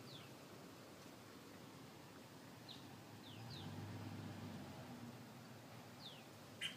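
Near-quiet background with a few faint, short, downward-sweeping bird chirps scattered through it, about five in all, and a faint low hum in the middle.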